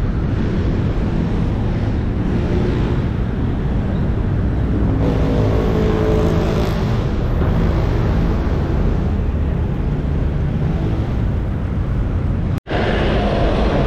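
Steady wind rush on the microphone of a moving bicycle, mixed with road traffic. The sound cuts out for an instant near the end.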